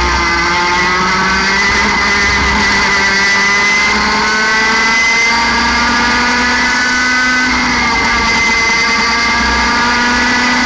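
A 60cc two-stroke kart engine at racing revs. It winds up over the first couple of seconds as the kart accelerates, then holds near full revs of about 14,000 rpm, with a brief dip and pick-up about two-thirds of the way in.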